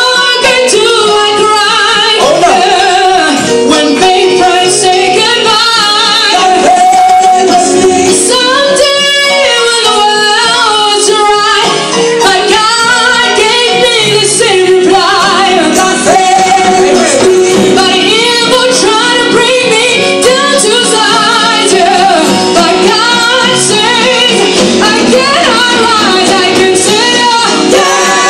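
Church praise team singing a gospel song, female voices leading, loud, with band accompaniment.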